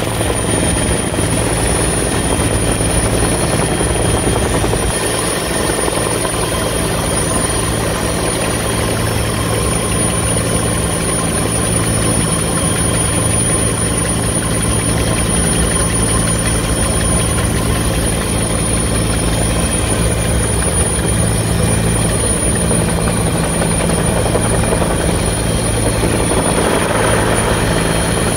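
Rescue helicopter hovering, heard from inside its open cabin door: a loud, steady rotor beat with a constant high-pitched whine over it and a rush of downwash and wind.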